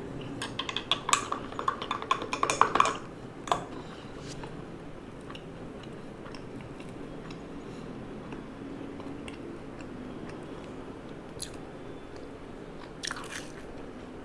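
Crunchy bites and chewing close to the microphone, a dense run of crackling crunches in the first three seconds, then only a steady low background hum with a couple of faint clicks near the end.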